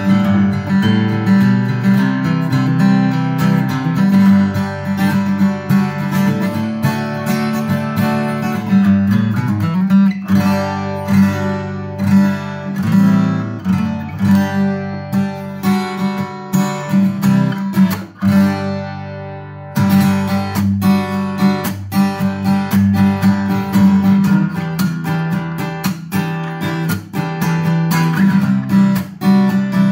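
Cat's Eyes CE-250 dreadnought acoustic guitar (1970s Tokai Gakki, spruce top, rosewood back, 11-gauge strings) played with the fingers, a picked melody over bass notes mixed with strummed chords. About 18 seconds in, a chord is left to ring out and fade before the playing resumes.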